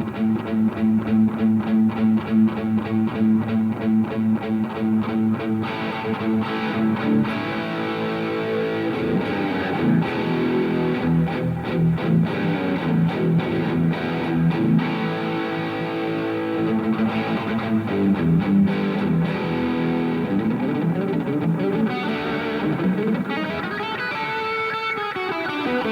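Electric guitar played through a Revv G3 preamp/distortion pedal into an amp, with a distorted tone: fast rhythmic chugging for the first six seconds or so, then riffs and note runs. The tone shifts as the pedal's bass, mid and treble controls are swept.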